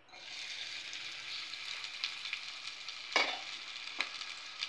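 Chopped shallots hitting hot groundnut oil in a deep metal ladle-pan and sizzling as they begin to fry. The sizzle starts suddenly as they go in, with a few sharp clicks, the loudest about three seconds in.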